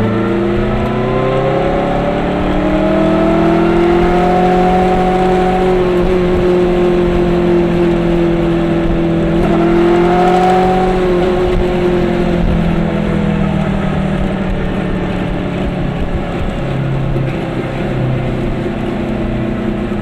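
Car engine running while driving, its pitch rising as it gathers speed, dropping briefly about halfway through, climbing again, then easing off to a steadier note.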